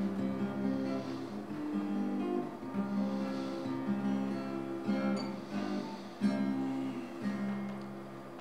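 Acoustic guitar played solo in a slow pattern of picked and strummed chords, the notes left ringing and changing about once a second.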